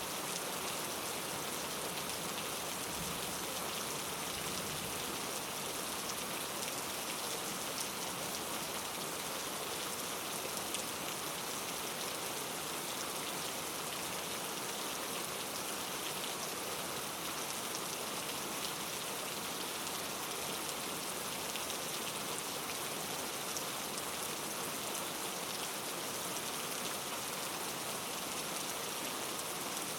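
Steady rain falling on a surface, an even patter of drops.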